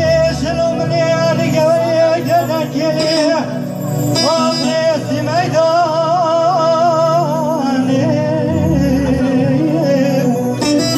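A man singing into a microphone through a sound system, his melody wavering and ornamented, over steady amplified backing music.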